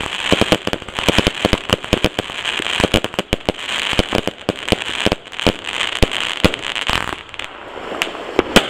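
Fireworks bursting overhead: a dense, irregular run of sharp cracks and pops over a steady crackle, with one louder bang near the end.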